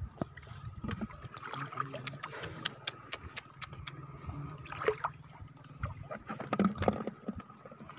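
Water sloshing and splashing as someone wades and handles a fishing net, with a run of sharp clicks about two seconds in and a few louder knocks later.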